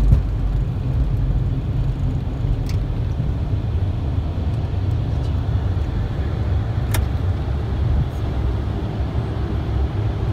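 Cockpit noise of a Dassault Falcon 8X on its takeoff run and lift-off: a steady low rumble from its three jet engines at takeoff power and the airframe, with a couple of sharp clicks, the clearer one about seven seconds in.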